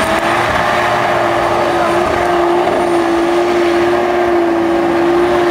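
SUV engine held at high revs at full throttle, a steady high note that barely changes pitch, as it climbs a steep sand hill.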